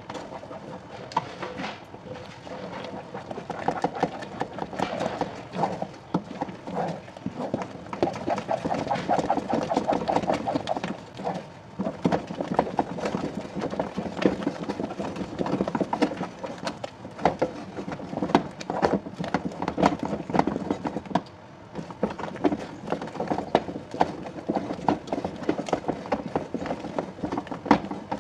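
Fufu dough being worked with a wooden tool: rapid, uneven knocking and thudding as the thick dough is turned and pressed, going on throughout with louder stretches.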